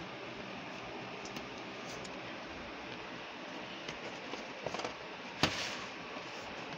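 Plastic VHS cassette cases being handled: a few light clicks about four to five seconds in and a sharper clack about five and a half seconds in, over a steady background hiss.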